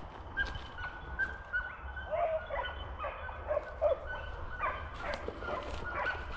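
Boar-hunting dogs yelping and barking in a rapid string of short, high-pitched calls.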